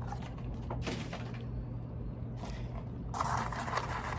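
Paper food packaging rustling and crinkling as it is handled, getting denser and louder from about three seconds in, over a steady low hum.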